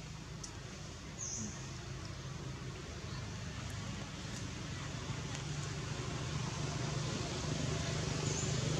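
Steady outdoor background noise with a low hum that grows gradually louder. There is a faint short high chirp about a second in.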